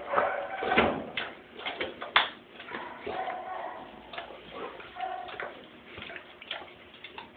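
Bullmastiff chewing rawhide: irregular wet smacking and crunching clicks, with one sharp crack about two seconds in.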